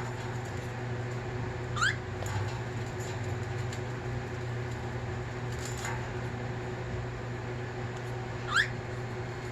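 Cockatiel giving two short, sharply rising chirps, one about two seconds in and one near the end, over a steady low hum.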